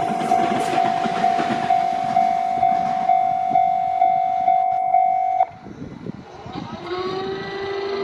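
A Japanese level-crossing alarm rings a steady, evenly pulsed tone, about two and a half beats a second, over the rushing noise of an Akita Shinkansen E6 series train going through. Both cut off suddenly about five and a half seconds in. Near the end a quieter whine rises in pitch and then holds.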